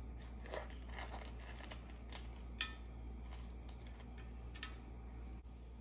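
Whole spices, cinnamon pieces among them, dropped a few at a time into a little hot oil in a metal saucepan, making a scattering of light ticks and crackles, the sharpest about two and a half seconds in. A steady low hum runs underneath.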